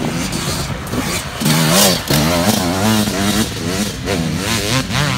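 Husqvarna enduro motorcycle engine revving up and down over and over as the rider works the throttle on a dirt trail. The loudest rise in pitch comes about two seconds in.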